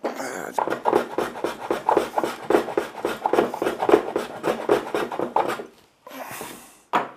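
A hand tool scraping back and forth on the wood of a stool leg in quick strokes, about three or four a second, stopping about six seconds in; a short softer rub and a sharp click follow near the end.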